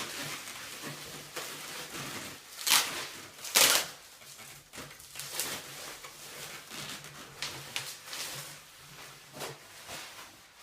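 Rustling and handling of packaging as a wrapped brewing chiller is lifted out of a boiler, with two louder scrapes about three seconds in and smaller ones after.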